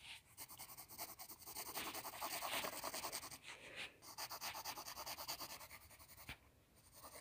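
Graphite pencil scratching on sketchbook paper in a rapid run of short, light strokes as strands of hair are sketched in; the strokes stop about six seconds in.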